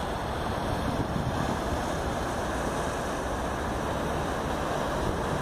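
Steady rumble and water rush of a glass-roofed river tour boat passing on the river, mixed with wind buffeting the microphone.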